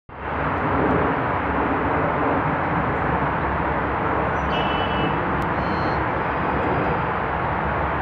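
Steady roar of road traffic. Two short, high chirps come around the middle.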